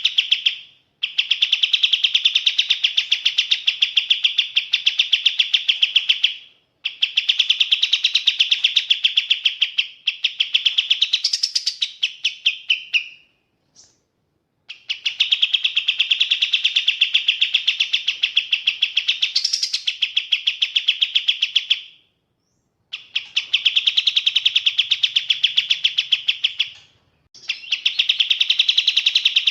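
Kapas tembak bird singing a rapid, even chattering trill in bouts of about five seconds, broken by short pauses. Twice a brief higher note rises above the trill.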